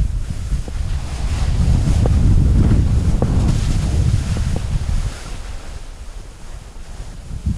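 Wind buffeting the microphone of a camera carried by a skier moving fast downhill, mixed with the hiss and scrape of skis sliding and turning on spring snow. It eases off about five seconds in and picks up again near the end.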